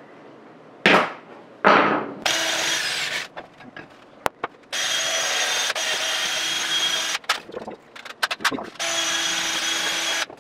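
Electric drill spinning a wire wheel against the rusty cast-iron body of a Stanley No. 4 hand plane to strip the rust. Two short blips about a second in, then three steady runs of a few seconds each with pauses between.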